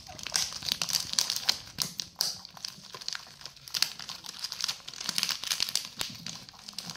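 Plastic packet of roasted seaweed sheets crinkling as it is handled and sheets are pulled from it, in many irregular crackles.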